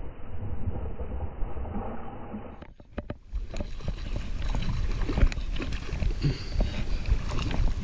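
Low rumble of wind on the microphone with scattered knocks and clicks of handling in a small fishing boat. The sound drops out briefly about three seconds in, then picks up again with a few sharp clicks.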